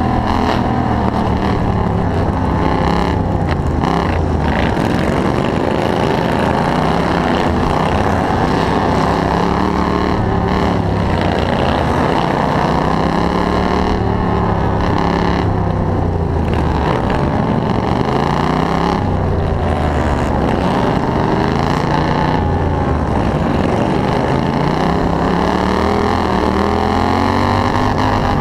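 Racing ride-on lawn mower's engine heard from on board under racing throttle, its pitch climbing and dropping every few seconds as it laps a dirt track.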